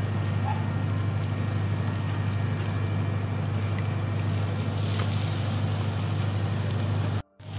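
A steady low mechanical hum runs under faint crackles from the charcoal embers beneath the grilling carp. The sound cuts out briefly near the end.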